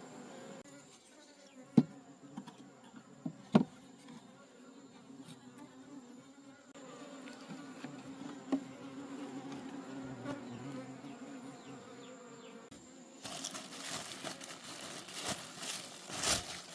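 Honey bees buzzing steadily as a colony, with two sharp knocks in the first few seconds and a louder, scratchy noise over the last few seconds.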